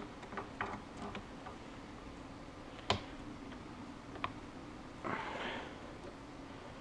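Light metallic clicks and knocks from gloved hands handling the limited slip differential and its bearing caps in the axle casing. There are a few small taps in the first second, a sharper clink about three seconds in, another just after four, and a brief rustle about five seconds in, over a faint steady hum.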